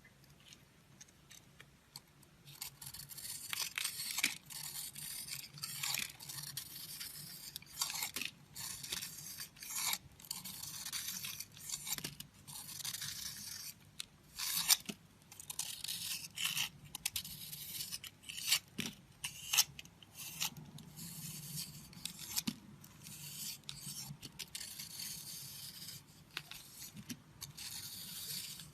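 A blade scraping and slicing into a bar of soap in many short, irregular strokes, beginning about two and a half seconds in, with a few sharper crisp cuts among them.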